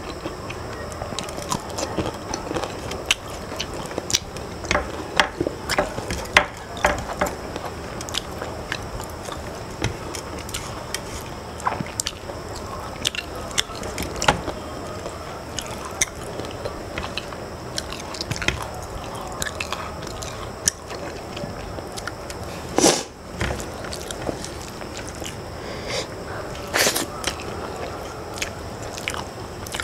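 Close-up eating sounds: chewing and wet mouth smacks as curry-soaked rice is eaten by hand, with fingers squishing and scraping the rice on a steel plate. A constant run of small clicks, and two louder sharp knocks in the last third.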